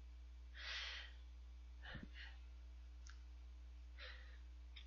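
Near silence: room tone with a steady low electrical hum, a soft breath just under a second in, and a few faint clicks.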